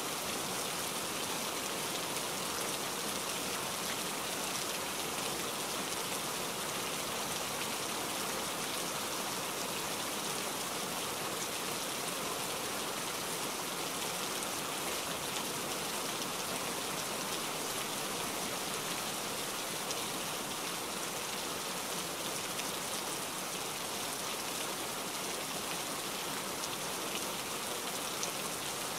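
Steady rain, an even hiss that does not change.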